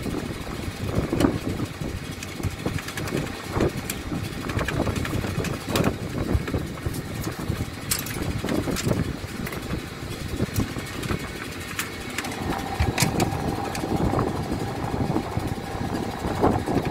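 Steady low machinery rumble, like an engine running nearby, with scattered knocks and clanks as an aluminium step ladder is climbed down. A steady thin whine joins in the last third.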